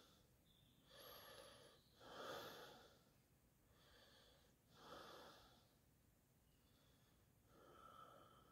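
Near silence with about five faint, soft breaths from a person close to the microphone.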